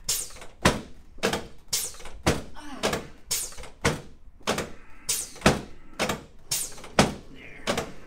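Rhythmic thumps, about two a second, on a padded chiropractic table as a chiropractor presses repeatedly on the upper chest of a patient lying face up.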